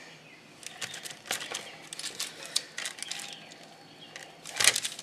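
Plastic bench scraper pressing down through soft scone dough onto a parchment-lined metal baking sheet: scattered light taps and scrapes, with one louder, brief scrape near the end.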